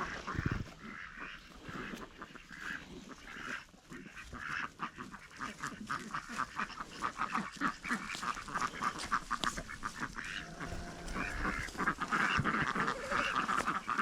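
Waterfowl calling over and over in short, overlapping honks and quacks, growing busier and louder in the last few seconds.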